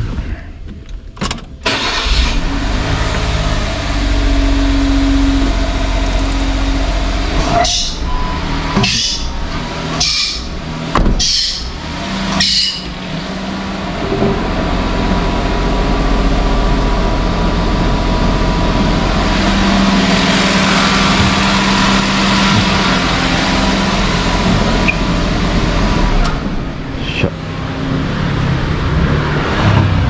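A small kei-car three-cylinder engine starts about two seconds in and then runs steadily at idle. A few short knocks come around the middle, and a louder stretch follows later.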